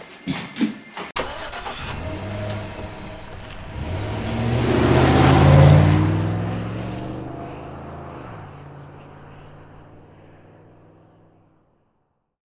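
A motor vehicle driving past: its engine sound builds to a peak about five seconds in, then drops in pitch and fades away.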